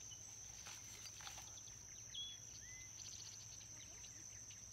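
Faint pondside ambience: a steady high-pitched insect buzz, with two brief faint bird chirps about two seconds in.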